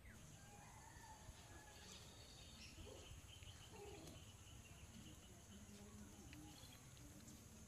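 Faint outdoor ambience: a steady high-pitched hum of insects with scattered short bird calls.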